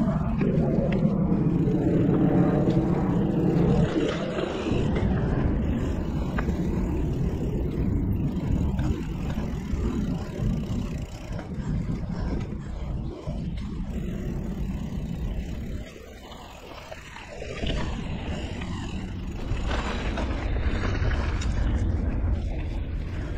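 Wind buffeting a chest-mounted action-camera microphone, mixed with a mountain bike's tyres rolling over dirt singletrack. The noise is heaviest at the low end and eases briefly about two-thirds through.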